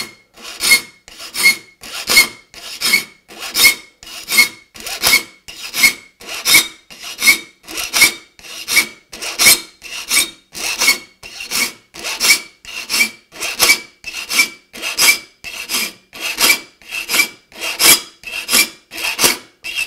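A saw file rasping across the teeth of a Spear & Jackson handsaw held in a saw vise, in a steady rhythm of even strokes, each with a short high ring. The teeth are being filed square across to turn a crosscut saw into a rip saw. The saw's steel gives the file firm, even resistance: neither too hard nor too soft.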